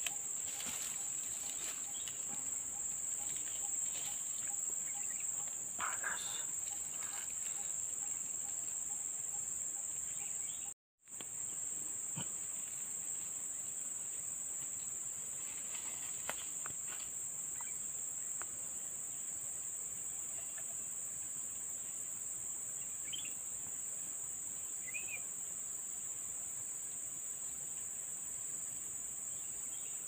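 Insects, crickets or cicadas, keeping up a steady, high-pitched buzzing drone that cuts out for a moment about eleven seconds in, with two faint short chirps near the end.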